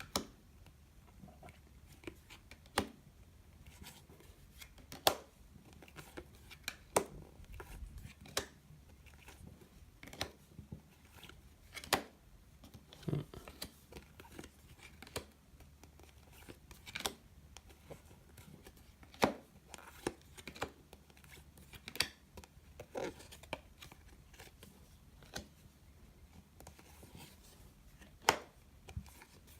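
Glossy trading cards being handled and flipped one at a time, giving short sharp snaps and slides, irregular but about one every second or two, with a few louder flicks. The cards in this box tend to stick together.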